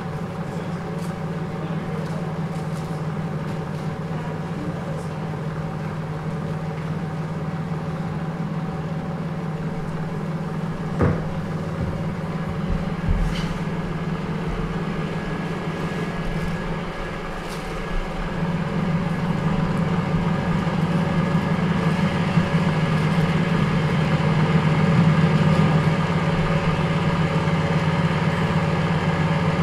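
A steady low drone that grows louder about two thirds of the way through, with a few sharp clicks around the middle.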